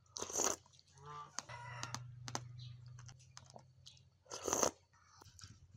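Close-miked slurping of passion fruit juice and seeds, two loud slurps about half a second in and about four and a half seconds in, with crunching and chewing of the seeds between them.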